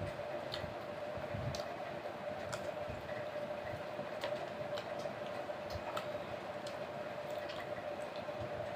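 Close-up wet chewing and lip-smacking while eating fried chicken pakora by hand, with irregular sharp mouth clicks, over a steady background hum.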